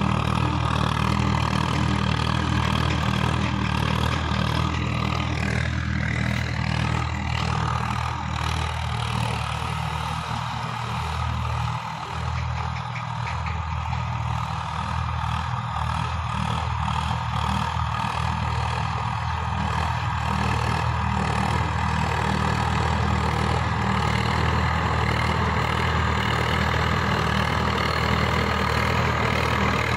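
Diesel tractor engines running steadily under load while pulling tillers through soil. The sound is a little quieter around the middle and fuller again near the end.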